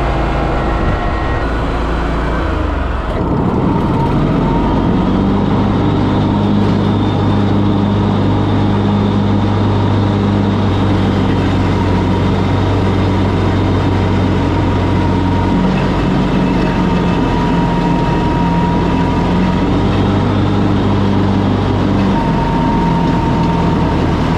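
Engine of a mower running steadily while cutting tall weeds along a farm road. Its low note steps to a different pitch a few times.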